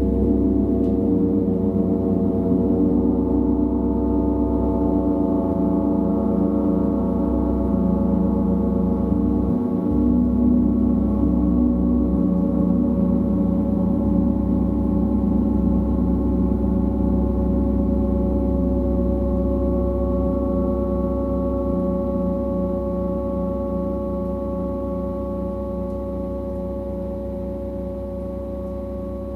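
Gong sounding in a long sustained wash of many ringing tones with a wavering, beating low hum, slowly fading over the last several seconds.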